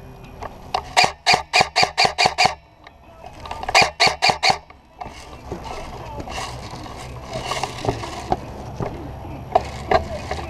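Airsoft gun fired in two quick strings of sharp cracking shots, about five a second: seven shots, then after a short pause four more. Scattered clicks and background noise follow.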